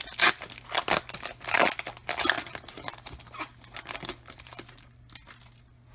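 Plastic wrapper of a trading card pack crinkling and tearing as it is ripped open. The crackling is busiest over the first three seconds and dies away by about five seconds in.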